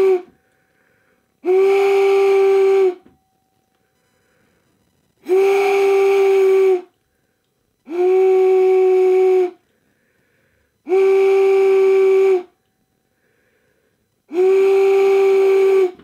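A giant 3D-printed plastic whistle, glued together from failed prints, blown in long blasts of about a second and a half with short pauses between: the end of one blast, then five more. Each blast is one steady low note, at about 382 hertz, tuned to the wine glass's resonant pitch in an attempt to shatter the glass by resonance.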